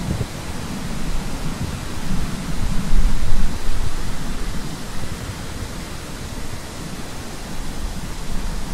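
A steady rushing noise with a deep rumble that swells about three seconds in, then eases back.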